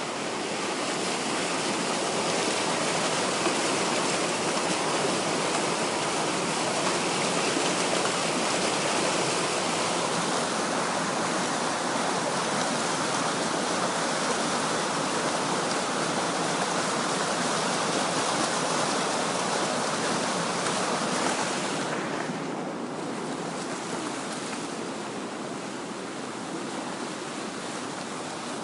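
Rushing water of a waterfall: a steady, dense rush of white water. It grows softer and duller about three-quarters of the way through.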